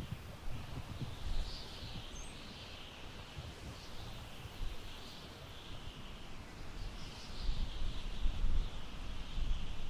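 Wind blowing through tall grass, a rustling hiss that swells and fades in gusts, with low wind rumble on the microphone that grows stronger in the second half. A single faint high chirp about two seconds in.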